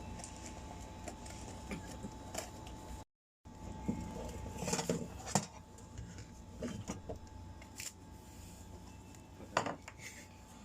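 Scattered clinks and knocks of cutlery and dishes at a meal, with a brief dead gap about three seconds in.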